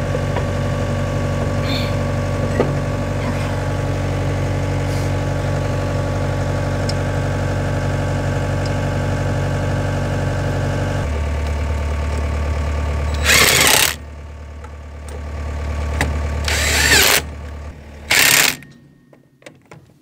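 An engine idling steadily, its note dropping to a deeper hum about eleven seconds in. Then three short, loud bursts of a cordless impact wrench spinning the wheel's lug nuts on, with a fourth starting right at the end.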